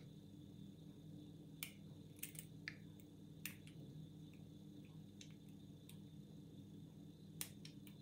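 Faint, scattered clicks of a bobby-pin pick working the pin tumblers of an Iseo euro cylinder lock under tension, a few close together in the first half and a pair near the end. The lock holds spool pins and sits in a deep false set.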